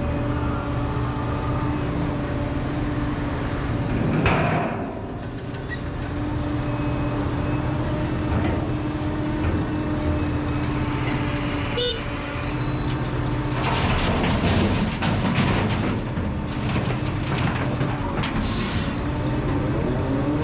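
Liebherr R976 crawler excavator's diesel engine running steadily under hydraulic load as the machine swings its bucket over a tipper truck. There is a short hiss about four seconds in, and a longer rush of noise about 13 to 16 seconds in as the load of soil is dumped into the truck body.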